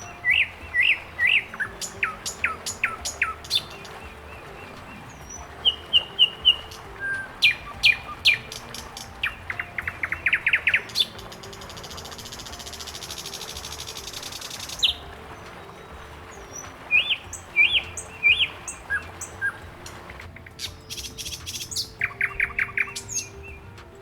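Songbirds chirping and calling over and over, in sharp rising chirps and quick rattling trills. A steady high buzzing hiss comes in for a few seconds about halfway through.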